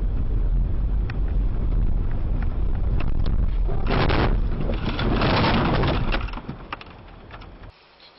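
A car on the road, with a loud, steady low rumble of road and engine noise and two louder rushing surges about four and five seconds in. Scattered clicks run through it, and the rumble cuts off suddenly near the end.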